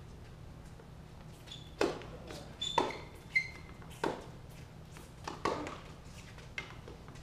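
Tennis ball struck by rackets and bouncing on a hard court during a doubles rally: about six sharp pops at irregular intervals, starting about two seconds in, some with a brief ringing ping.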